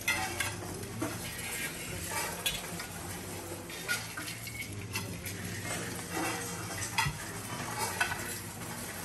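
Rice grains being poured and swept over metal mandala offering plates by several people at once: a continuous grainy rustle with occasional sharp clinks of metal.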